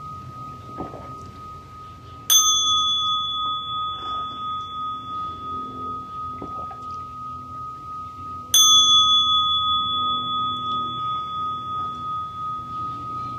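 Metal bowl bell struck twice, about six seconds apart. Each strike rings on long and fades slowly with a wavering beat, over a steady ringing tone that is already sounding.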